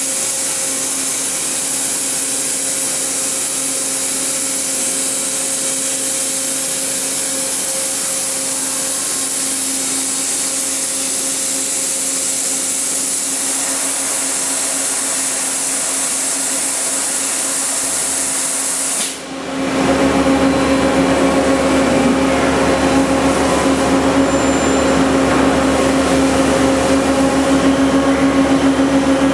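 Toyoda FH630SX horizontal machining center running, a steady hum under a loud hiss. About two-thirds of the way through the hiss cuts off suddenly and a louder, lower machine noise with a stronger hum takes over.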